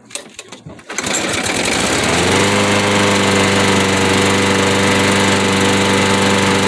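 Small four-stroke walk-behind lawnmower engine starting about a second in, after extra priming, and settling into a steady run at constant speed.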